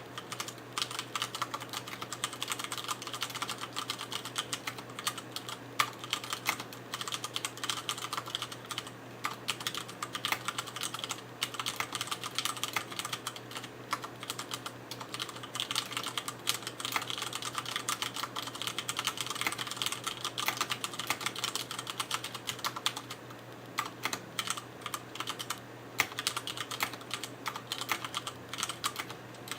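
Continuous fast typing on a mechanical keyboard with Cherry MX Brown switches and ABS keycaps, a dense steady stream of key clacks.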